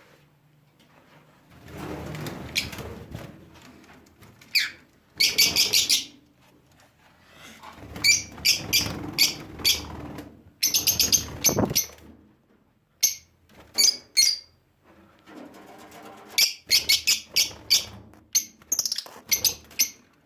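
Pet birds chirping in quick clusters of short, high, sharp calls, with stretches of rustling and wing flapping between them.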